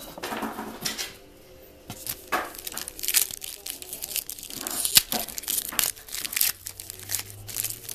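Baseball card pack wrapper being torn open and crinkled by hand: a run of sharp crackling rips and rustles.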